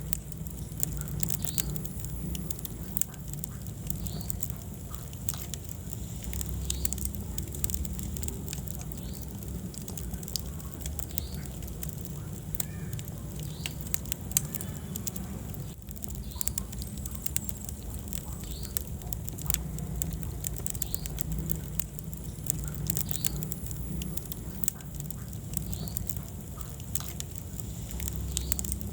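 Wood fire burning in a fireplace: a steady low rumble of the flames with frequent sharp crackles and pops from the burning wood.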